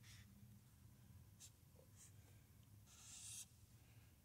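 Faint scratching of a pen drawing a sketch: a few short strokes and one longer, louder stroke about three seconds in, over a faint low hum.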